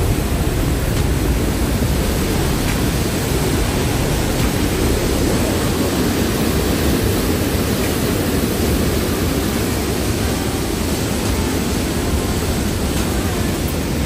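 The Rhine Falls, a large river waterfall heard at close range: a loud, steady rush of falling and churning white water.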